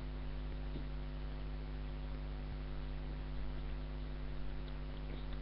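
Steady electrical mains hum with a constant hiss, the background noise of a webcam microphone, with a few faint ticks.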